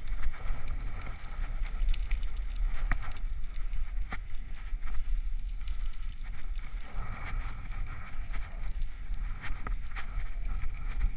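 Wind buffeting the microphone of a helmet camera on a moving bicycle, a steady low rumble, over the hiss of bicycle tyres rolling on wet asphalt. A few sharp clicks sound through it.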